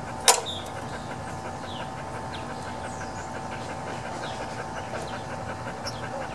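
A single sharp click about a third of a second in, as the carburetor linkage and fuel-line parts of a Honda lawn mower engine are handled. Behind it, a steady outdoor background with a continuous pulsing buzz and a few faint chirps.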